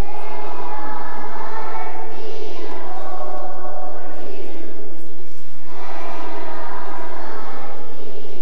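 Children's choir singing, long held notes with a short break between phrases about five and a half seconds in.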